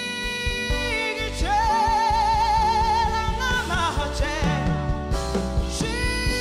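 A song with a singer holding long, wavering notes over instrumental backing.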